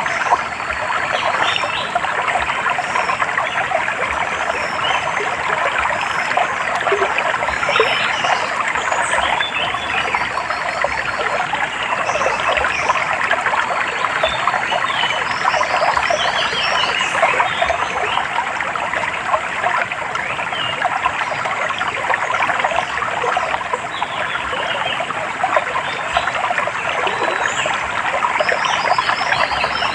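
Small stream trickling and babbling steadily, with birds chirping and trilling now and then above it.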